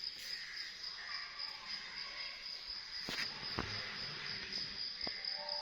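A cricket trilling steadily in a high, finely pulsing tone, with three sharp ticks about three, three and a half and five seconds in.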